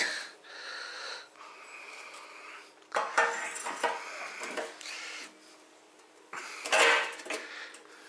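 Handling noise as a mower deck with its front wheel assembly is lifted and turned over by hand: rustling and light knocks, with two louder noisy bursts about three seconds in and near the end. A faint steady hum runs underneath.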